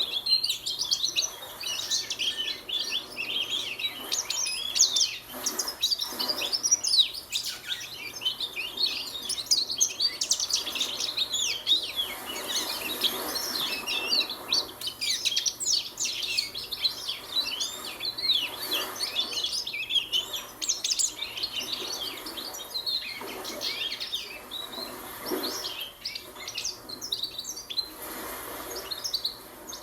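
Young goldfinch practising its song: a long, rambling stream of rapid twitters and chirps with hardly a pause, the unformed subsong of a juvenile learning to sing.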